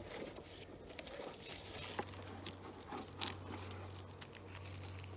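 Chewed-up newspaper from a beehive combine being pulled off the hive boxes and crumpled by hand, a run of rustles, crackles and small tears.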